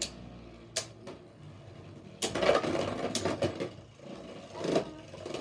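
Beyblade Burst spinning tops clashing and rattling against each other and the plastic stadium walls: a few sharp clicks, then a burst of rapid clatter about two seconds in, and another knock near the end.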